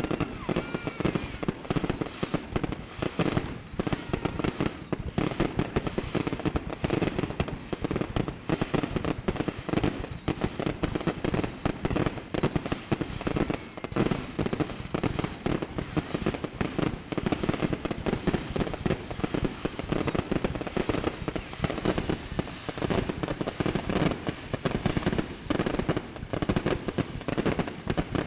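Fireworks display: aerial shells bursting in a dense, unbroken barrage of rapid bangs and crackling.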